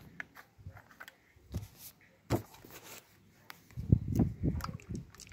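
Plastic handling noises: scattered clicks and knocks as a small plastic squeeze bottle is uncapped and held over an open plastic tub, with a cluster of low bumps about four seconds in.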